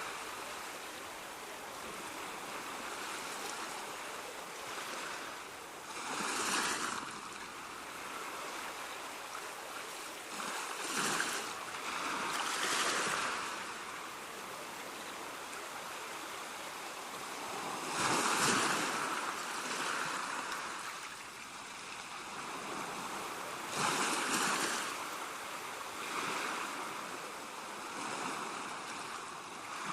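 Waves surging and washing back over a steady wash of water, a swell of rushing noise every few seconds.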